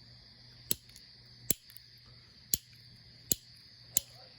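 Novelty double-barrel shotgun lighter's trigger clicked five times, about once a second, each a sharp click with no flame catching: the lighter is not sparking.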